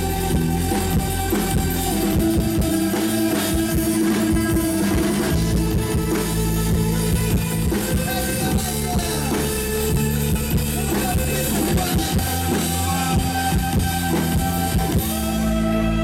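Live rock band playing over the stage PA: electric guitars and violin over a drum kit. About a second before the end the drums and cymbals stop and a held chord rings on.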